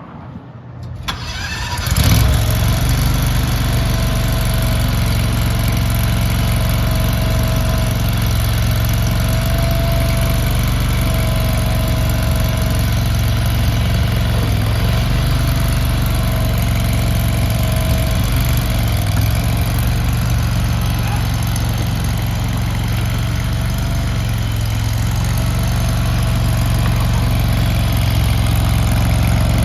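Gas engine of a JQ Power JQ400 mini skid steer loader starting about two seconds in, then running steadily.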